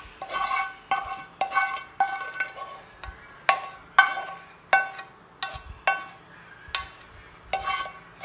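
Metal spoon repeatedly clinking and scraping against a nonstick frying pan and plate as flaked tinapa (smoked fish) is scooped out, each clink ringing briefly; about a dozen strikes, one or two a second.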